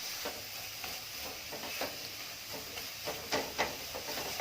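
Grated ginger sizzling in ghee in a kadhai while a spoon stirs and scrapes it, with a few sharper scrapes about three seconds in. The mixture is being cooked down to a dough as its moisture cooks off.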